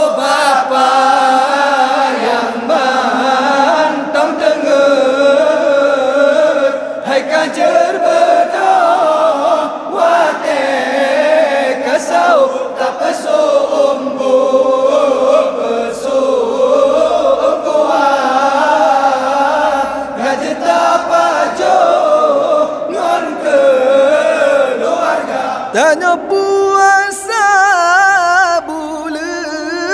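A group of young men chanting an Acehnese sahur wake-up verse together into a microphone, calling people to rise for the pre-dawn meal. Near the end a single man's voice takes over with a wavering, ornamented melody.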